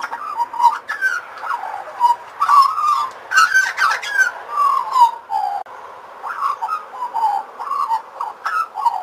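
Australian magpie song: a long run of warbling notes that glide up and down, cutting off suddenly at the end.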